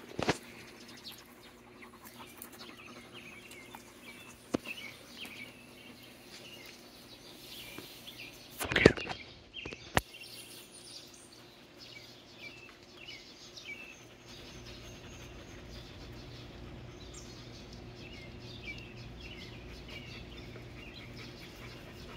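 Small birds chirping on and off in the background over a faint steady hum. Two sharp knocks stand out, the louder about nine seconds in and a second about a second later, and a low rumble sets in about fourteen seconds in.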